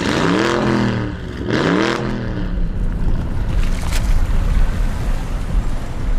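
A car engine revved twice, each rev rising in pitch, followed by a deep steady low rumble.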